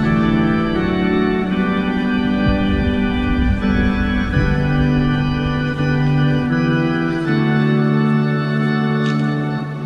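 Organ music: a slow chorale of held chords, each sustained for a second or two before moving to the next.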